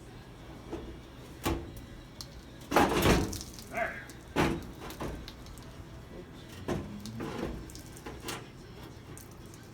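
Steel pickup fender being hung on a 1974 Chevrolet C10: scattered knocks and clunks of sheet metal being handled and set into place, with a cluster of heavier clunks about three seconds in.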